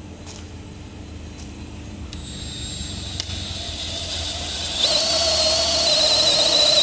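Makita DDF489 18V brushless cordless drill boring into a wooden board with a long auger bit. The motor and bit grow steadily louder as the hole deepens, and a high steady whine joins in about two-thirds of the way through.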